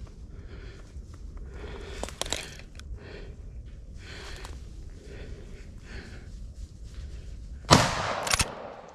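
Footsteps crunching through dry fallen leaves at a walking pace, about one step a second. Near the end, a louder rustle and snap of brush being pushed aside.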